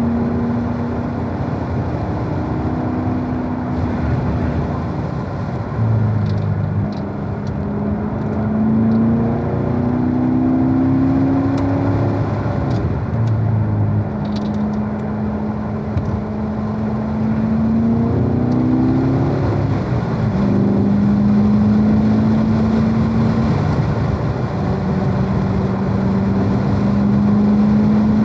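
Corvette engine running on a warm-up lap, mostly holding a steady note with several rises and falls in pitch as the revs change, over a steady wash of road noise.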